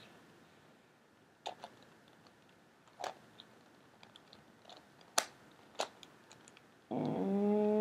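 Scattered sharp plastic clicks of a Megaminx's faces being turned by hand, about a second or two apart. Near the end a voice hums one steady note for about a second.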